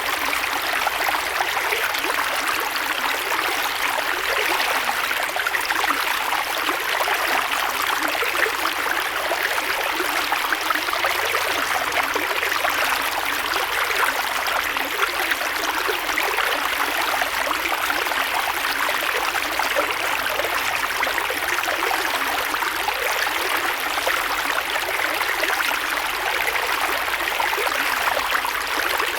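Creek water flowing steadily over stones, a continuous rushing and trickling without any pauses.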